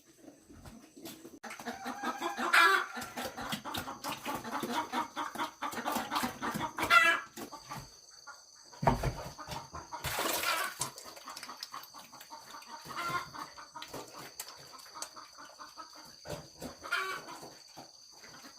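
Chickens clucking in irregular bursts, busiest in the first half, over a steady high-pitched whine.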